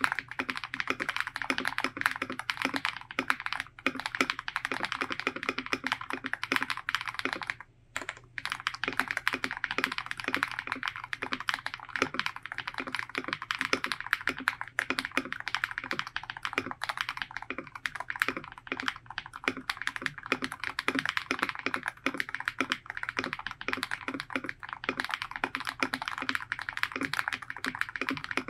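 Fast, continuous typing on an Ikki68 Aurora custom mechanical keyboard, built with lightly lubed Strawberry Milk Ice linear switches, an FR4 plate, a three-layer tape mod and crystal keycaps. There is a brief pause about eight seconds in.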